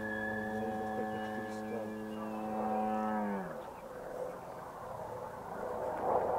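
Electric motor and propeller of a scale RC glider running at a steady high pitch, then cut about three and a half seconds in, the pitch sliding down as the propeller winds down. A faint rushing noise follows, swelling near the end.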